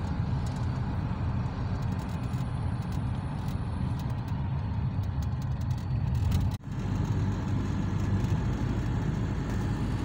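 Steady road and engine rumble heard from inside a moving car's cabin. It drops out for an instant about two-thirds of the way through.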